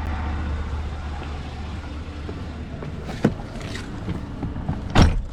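Car driving, with a steady low road and engine rumble; a sharp click about three seconds in and a louder thump near the end.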